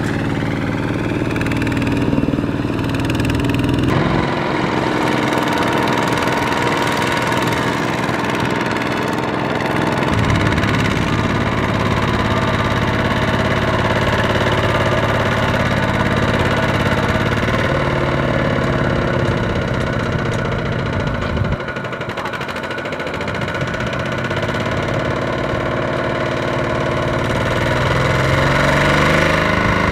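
Single-cylinder diesel engine of a Kubota two-wheel walking tractor running under load in deep mud, its pitch rising and falling as it labours.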